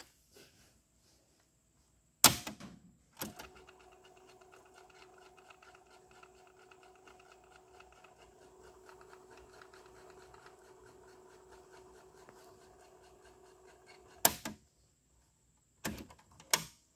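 Technics RS-T22 cassette deck: a loud transport-button click about two seconds in, and another a second later, set the tape mechanism running. It runs with a faint, steady whine for about eleven seconds, then a click stops it. Two more button clicks come near the end.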